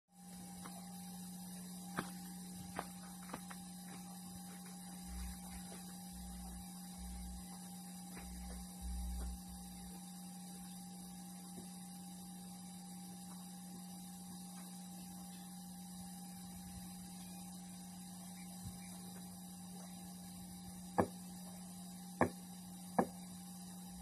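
Faint, steady electrical hum from a powered-up sound system's speaker stack, waiting before playback. A few sharp clicks come near the start and again near the end, with some short low thumps in between.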